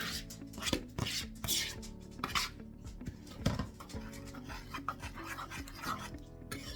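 A spoon stirring and scraping through slushy snow cream in a mixing bowl, in irregular strokes with occasional clinks against the bowl.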